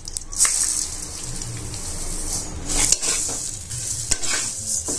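Split moong dal poured into hot ghee in a metal kadai, setting off a steady high sizzle. A metal spatula stirs and scrapes the frying dal, with a few sharp strokes through the middle and near the end.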